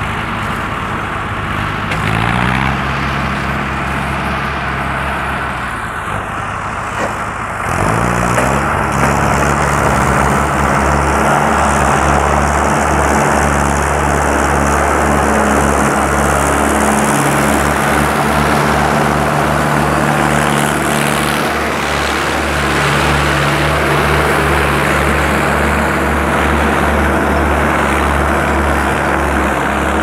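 Diesel engines of two Mahindra Arjun 555 tractors running under heavy load as they pull one mouldboard plough in tandem for deep ploughing. The engine note rises about two seconds in and again about eight seconds in, then runs louder and steady.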